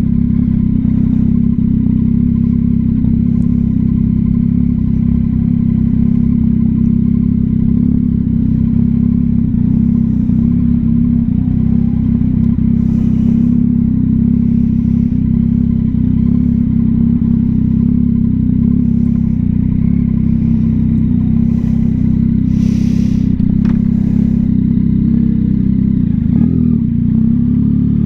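Yamaha XSR900's three-cylinder engine breathing through a Kelpi Custom Moto shorty exhaust, running loud and steady at cruising speed. Near the end its pitch starts to rise as the bike accelerates.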